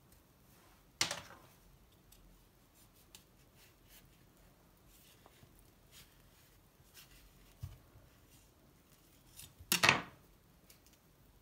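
Kitchen knife cutting around an avocado on a wooden chopping board: faint scraping and ticking, with a sharp knock about a second in and a louder clatter near the end as the knife is laid down on the board.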